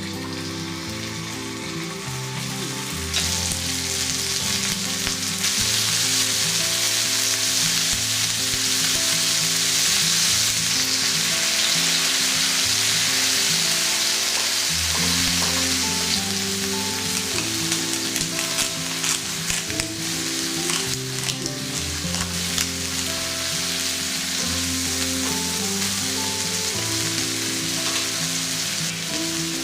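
Food sizzling in oil in a frying pan, a steady hiss that grows louder about three seconds in, with a few light clicks of a utensil later on. Background music plays under it.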